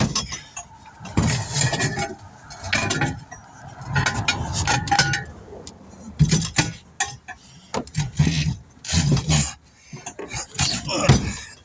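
Irregular metal clanks and knocks from working a tire onto a steel rim on a tire changer.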